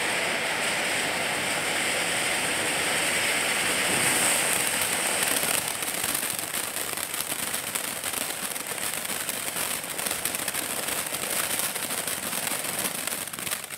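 Ground fountain firework (Standard Fireworks Peacock fountain) burning with a steady hissing rush of sparks; about six seconds in it turns to dense crackling as the crackle stars kick in.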